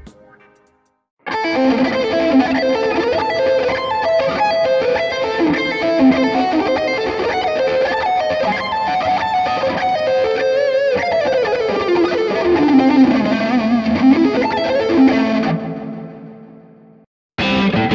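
Warmoth Stratocaster electric guitar played through a Bias FX 2 amp simulator with an effected, lightly distorted tone: a fast melodic lead line starting about a second in, with wavering vibrato notes. Late in the phrase the pitch glides a long way down and back up, then the sound fades out.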